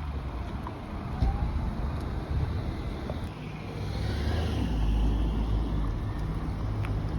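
Car driving: steady engine hum and road noise.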